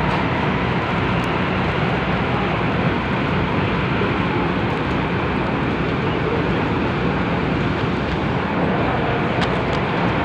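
Steady rumble and rush of an MTR metro train running, heard from inside the carriage, with a few faint clicks near the end.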